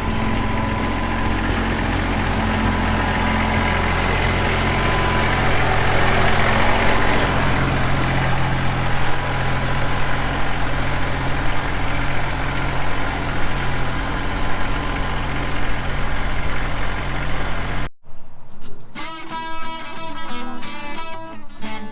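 Tractor engine running steadily as it pulls a middle buster through the soil of a potato row. About 18 seconds in it cuts off abruptly and strummed guitar music takes over.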